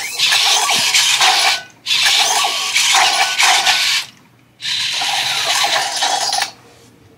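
Robosen Optimus Prime robot's servo motors whirring as it moves through a fight routine: three runs of about two seconds each with short pauses between, stopping about six and a half seconds in.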